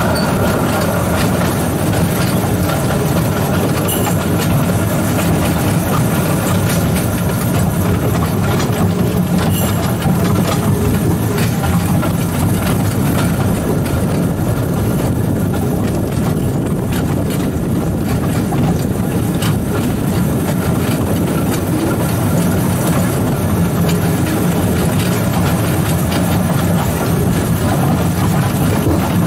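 Steady running noise from the cab of 2-foot-gauge locomotive No. 119 as it rolls along the track: a constant low drone that holds the same level throughout.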